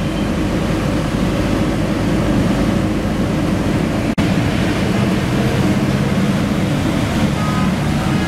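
Road noise of a moving vehicle in city traffic, a steady dense rumble heard from inside the vehicle, with other motorbikes and buses passing alongside. It breaks off for an instant about four seconds in and carries straight on.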